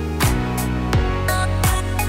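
Background music with a steady beat: a kick drum falling in pitch about every three quarters of a second over held chords, with crisp high ticks between the kicks.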